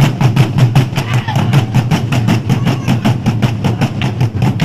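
Traditional Burundian drum ensemble beaten in a fast, steady rhythm of about eight strokes a second, the deep drum tones carrying the beat.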